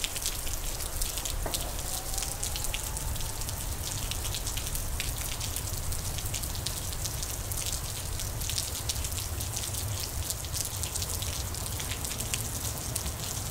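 Heavy rain pouring down: a steady rush dense with sharp hits of individual drops, over a low rumble.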